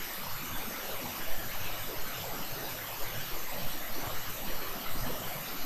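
Steady hiss of recording background noise from the narrator's microphone setup, with no speech or other distinct sound.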